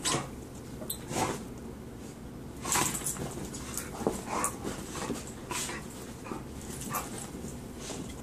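A pit bull and a dachshund play-wrestling: short, irregular dog noises and scuffles come and go every second or so.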